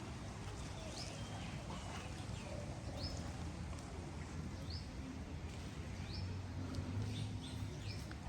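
A bird calling a short, quickly rising note over and over, about once every second or two, over a steady wash of sea surf.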